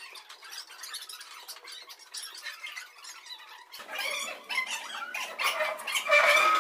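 Classroom bustle of pupils moving into groups: scattered chatter, shuffling and small knocks, sounding thin with the low end missing. The voices grow louder near the end.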